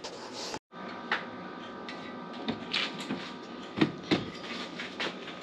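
Steady hum from an open oven with a faint whine in it, broken by several light clicks and knocks of handling at the oven.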